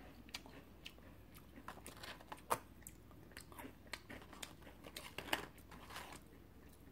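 Close-miked chewing of a latte-dipped coconut crunch cookie: faint, irregular crunchy clicks as the bits of dried coconut are chewed, a few sharper crunches among them.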